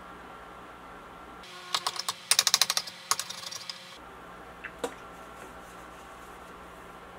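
Chopsticks clicking and tapping against a square ceramic-coated egg pan while rolling an omelette: a quick run of about a dozen sharp clicks, then two single taps, over a faint steady hum.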